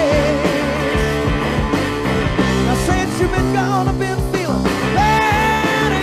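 Hard rock band playing live: a male lead singer over electric guitar, bass and drums. He sings a wavering line at the start and holds one long note near the end.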